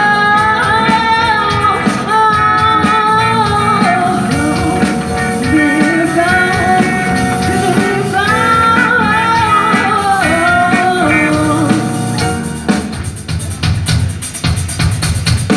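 Live rock band playing: a woman singing over electric guitars, drums and keyboard. The singing stops about twelve seconds in and the band plays on.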